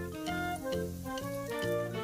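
Background music: an upbeat instrumental tune with a bouncing bass note about twice a second and organ-like sustained chords.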